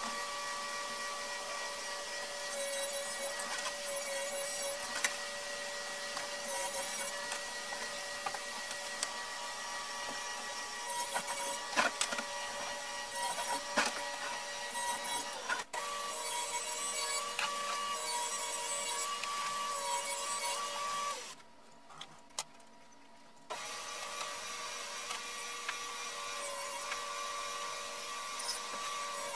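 Table saw running with a steady whine while cutting MDF, with a few sharp knocks partway through. The sound drops out abruptly for about two seconds past the middle, then comes back.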